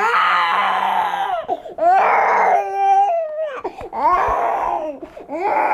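Baby crying loudly in a string of cries, each about a second long, rising and falling in pitch.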